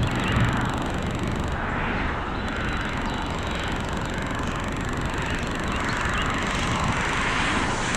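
Strong thunderstorm winds roaring, swelling and easing in gusts, with the wind buffeting the microphone.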